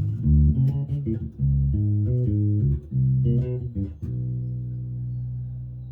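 Five-string electric bass played through a small bass combo amp: a run of quick plucked notes, then about four seconds in a single low note held and left ringing as it slowly fades.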